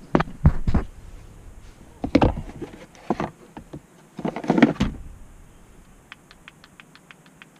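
Knocks and plastic rattles from handling a blend door actuator and dash parts inside a pickup's cab. Near the end comes a quick run of light ticks.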